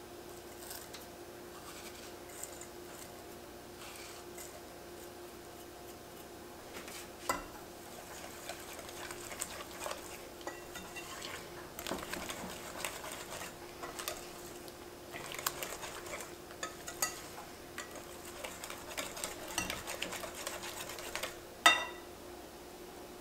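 Stainless wire whisk beating a thick egg-and-grated-cheese mixture in a glass bowl, with irregular clinking and scraping against the glass. The first several seconds are faint, and a sharp clink of metal on glass near the end is the loudest sound.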